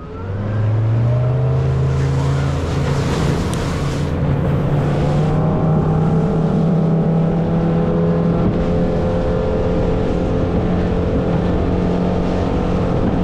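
Motorboat engine throttling up, its pitch rising over the first second or so, then running steadily at speed.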